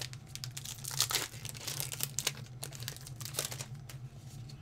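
Foil booster pack wrapper crinkling as it is handled and torn open, a run of dry crackles that is densest in the first two seconds.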